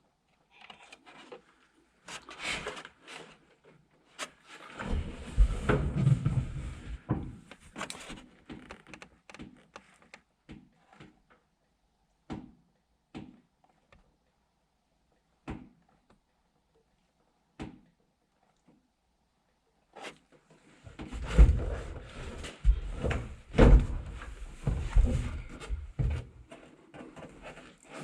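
Handling noise: scattered knocks, clicks and rubbing as objects are moved and set down by hand, busiest for a few seconds near the start and again for several seconds near the end, with single clicks in between.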